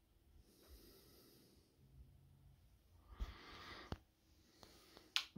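Near silence in a small room, broken about three seconds in by a short breath close to the microphone, then two faint clicks.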